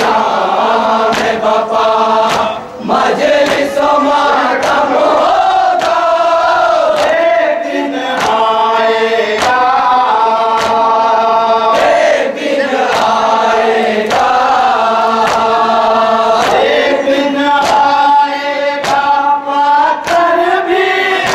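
A group chanting a nauha, an Urdu Shia lament, in unison with a held, sung melody. Sharp slaps from matam (rhythmic chest-beating) mark the beat about once a second.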